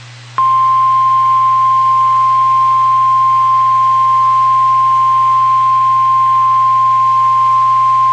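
Weather-radio alert tone: a single steady high-pitched tone that starts about half a second in and holds unbroken, with a low hum underneath. This is the 1050 Hz warning alarm signal that precedes a severe thunderstorm warning.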